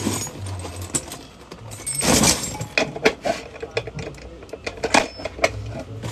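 Metal clicks, knocks and a scrape from a pressure cooker lid being worked on by hand on a wooden counter, with a longer rasping scrape about two seconds in.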